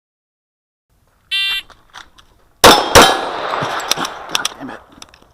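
A shot timer's electronic start beep, then a string of pistol shots from a Glock 35 in .40 S&W starting about a second later, the first two loudest and closest together, with echo and several further shots or hits on steel after them.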